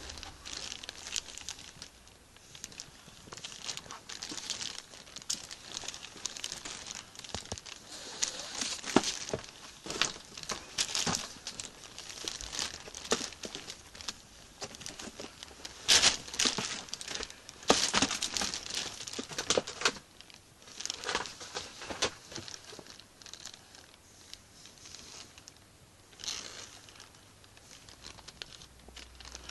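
Irregular rustling and crinkling with many scattered clicks, most likely handling noise from the phone being moved around in the hand. It is busiest in the middle and thins out near the end.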